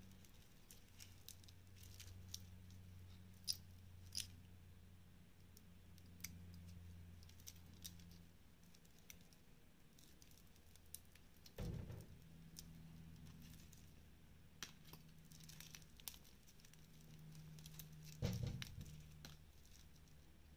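Faint crinkling, snipping and small clicks as clear plastic protective film is peeled and cut off a metal link watch bracelet, with two louder knocks partway through. A steady low hum sits underneath.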